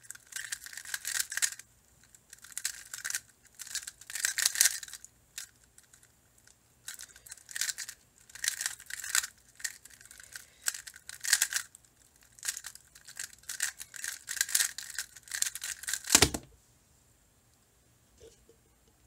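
Square-1 puzzle being turned at speed: quick spurts of plastic clicking and scraping as its layers turn and slice, with short pauses between them. About sixteen seconds in there is a single loud thump as the puzzle is put down, then it goes quiet.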